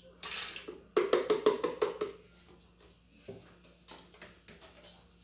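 Thick cream pouring from a carton into a plastic blender jar. A short hiss as it starts is followed by a quick run of tapping knocks lasting about a second, then a few faint clicks.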